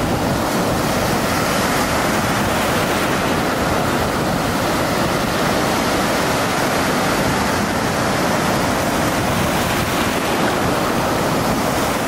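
A steady, dense rushing noise like heavy surf or static, with no pauses or swells.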